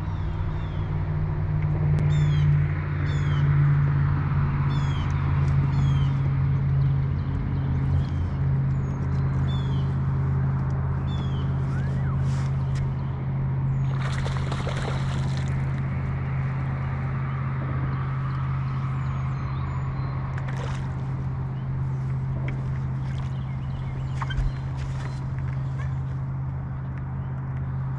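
Steady low hum of a boat motor running, with a bird calling in short falling notes about once a second over the first ten seconds or so.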